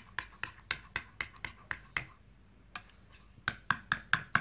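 Metal spoon clinking against a glass bowl while beating a liquid egg and milk mixture: about four quick clicks a second, a pause of a second or so, then faster clicks near the end.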